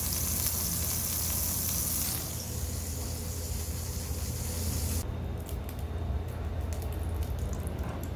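Chicken patty sizzling in oil in a frying pan, a steady hiss that eases about two seconds in. About five seconds in it changes abruptly to sparse crackles of hot oil in the pan, over a low steady hum.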